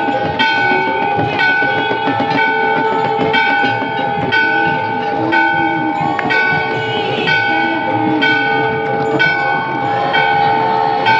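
Temple bells ringing for aarti: a bell is struck about once a second over a constant ringing tone and a dense clatter of other bells.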